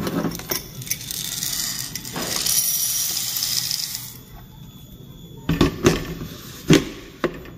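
Freshly roasted coffee beans poured from a hot-air roaster's glass chamber into a glass jar, a dense clattering rattle of beans on glass that builds and stops about four seconds in. A few sharp knocks follow as the chamber is set back onto the roaster base.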